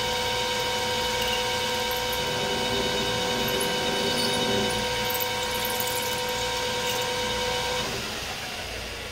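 Metal lathe running with a steady whine as a drill bit in the tailstock chuck bores an axle hole into the spinning round stock. About eight seconds in the whine stops and the level falls as the lathe winds down.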